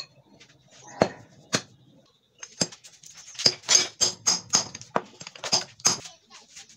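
Steel band saw mill parts (a shaft with its bearing and a pipe cylinder) knocking and clinking together as they are handled, a few knocks about a second in and a quick run of sharp metallic clinks from about three and a half seconds in.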